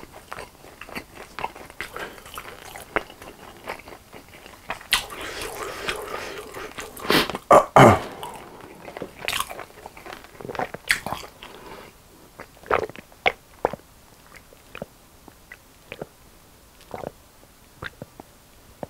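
Close-miked chewing and mouth sounds of a man eating fried chicken, with a louder burst of noise about seven to eight seconds in. From about twelve seconds on only sparse soft clicks and gulps remain as he drinks from a juice carton.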